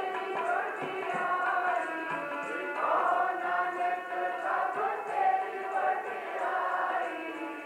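Sikh kirtan: voices singing a shabad together over the held chords of a harmonium, with tabla keeping time.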